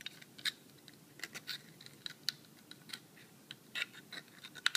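Faint, irregular clicks and light scrapes of a small metal tool working the cut edge of an aluminium can bottom, taking off the sharp edge so it won't cut.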